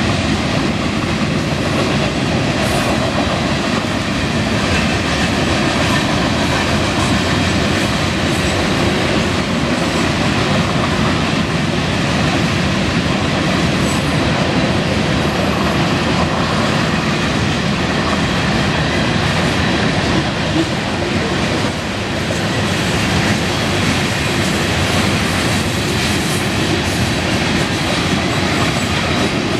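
Freight cars of a Union Pacific mixed freight train (boxcars, centerbeam flatcars, covered hoppers) rolling past at high speed: a steady, loud rumble and clatter of steel wheels on rail.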